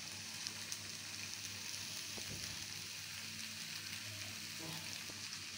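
Potatoes frying in spice masala in a metal kadhai: a steady sizzle, with a few faint ticks.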